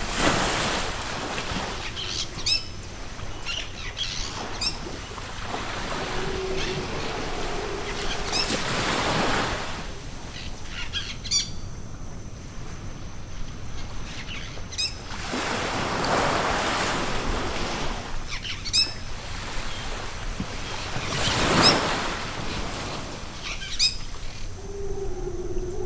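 Sea waves breaking and washing up a beach in slow swells several seconds apart, with short high bird chirps in between. A low wavering call comes in near the end.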